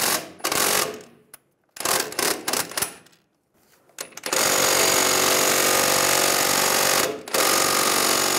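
A few short knocks, then about four seconds in an impact wrench starts hammering steadily, driving the screw of a ball joint press to force the old front lower ball joint out of the control arm, with a brief pause near the end.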